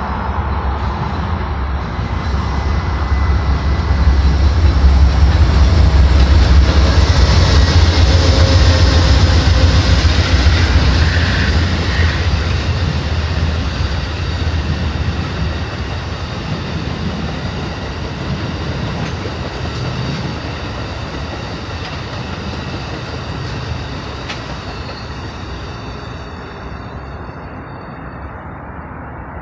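An Amtrak passenger train of bi-level Superliner cars passing close by. The heavy low rumble of its diesel locomotive is loudest about five to ten seconds in. The cars then roll past with steady wheel-on-rail noise that fades slowly as the train moves away.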